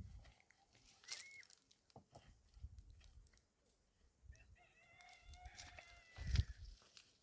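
A rooster crowing: a short high note about a second in, then one long crow held at a steady pitch from about four seconds in. A dull thump, the loudest sound, comes just after the crow ends.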